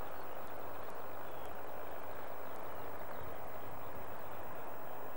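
Steady outdoor background noise across an open field: a constant rushing hiss with no distinct event.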